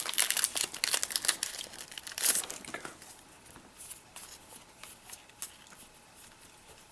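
Foil wrapper of a Yu-Gi-Oh! booster pack being torn open and crinkled, a dense crackle for the first three seconds, then fainter, scattered rustling.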